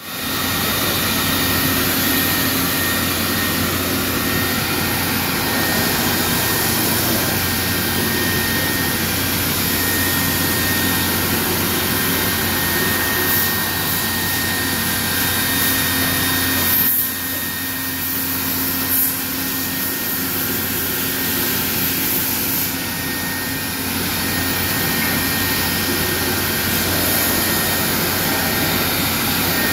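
Five-axis CNC router running through a motion cycle: a steady loud machine whir with a high whine, the whine dropping out and returning as the gantry and tilting spindle head move.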